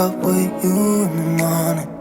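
Background music: a melody moving from note to note.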